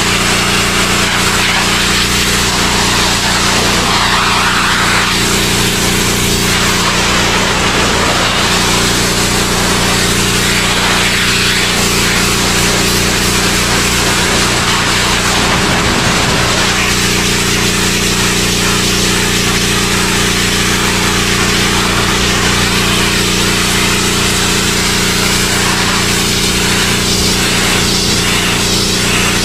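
Pressure washer running steadily, its motor humming under the hiss of the high-pressure water jet spraying against a plastic IBC tote.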